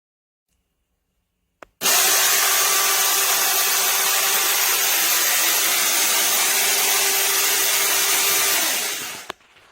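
Battery-powered 6-inch mini chainsaw switched on with a click, then running at a steady speed for about seven seconds, sawing wood, before winding down near the end.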